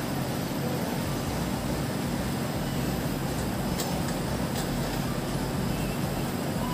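Steady mechanical hum and hiss that does not change, with a few faint ticks about halfway through.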